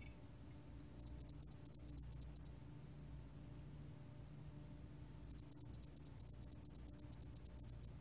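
Song of the 점날개털귀뚜라미, a Korean scaly cricket, recorded at 21 °C: high-pitched chirps repeated about ten a second in two runs, the first about a second in and lasting a second and a half, followed by a single chirp, the second longer, from about five seconds in nearly to the end.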